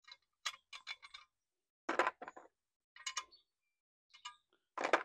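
Steel sockets clinking against each other and against the plastic tray of a mechanics' socket set as they are picked out and handled, a string of separate light clinks spread over the few seconds.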